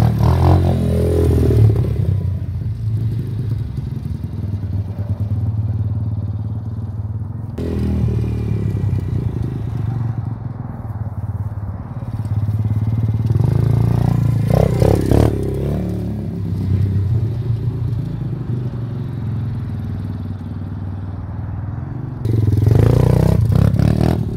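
Apollo 125cc dirt bike's single-cylinder four-stroke engine running as it is ridden, revving up and easing off again several times: at the start, about two-thirds of the way through, and near the end.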